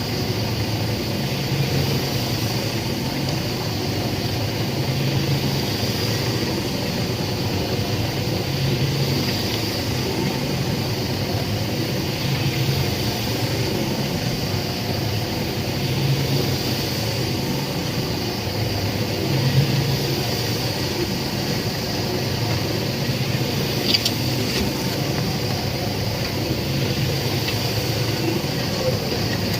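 Concrete pan mixer running steadily, its low hum swelling and easing about every three and a half seconds, with a single sharp click late on.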